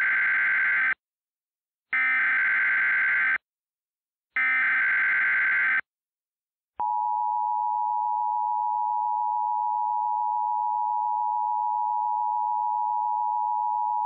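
Emergency Alert System alert opening: three short bursts of harsh, warbling digital SAME header data tones about a second apart. About a second after the last burst, the steady two-tone EAS attention signal starts and holds.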